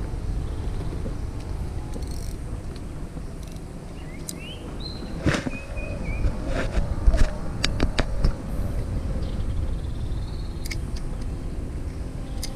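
Steady low wind rumble on the microphone, with a run of sharp clicks from handling the spinning reel and rod through the middle, along with a few short chirping whistles.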